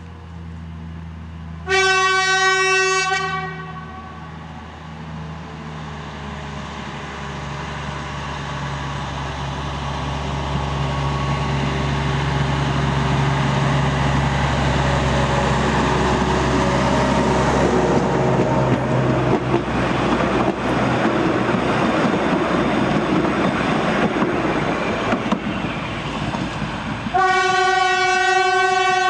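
Mk48-class narrow-gauge diesel locomotive sounding its single-tone horn for about a second and a half, then its engine and running gear growing louder as it approaches and passes close by. A second horn blast comes near the end.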